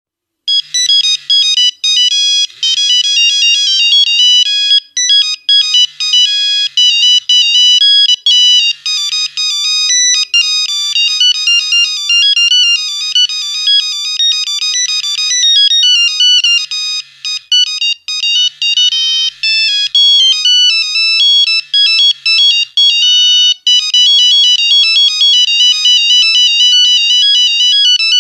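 Nokia 1101 mobile phone playing its monophonic ringtones: a fast, high-pitched run of single beeping notes, one note at a time, with a few short breaks between phrases.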